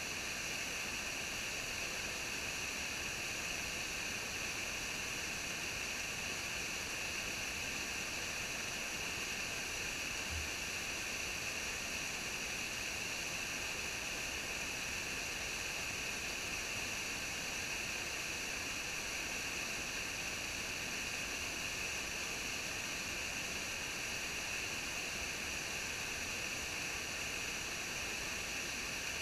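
Steady rush and hiss of water from a small waterfall cascading over boulders into a rocky stream pool.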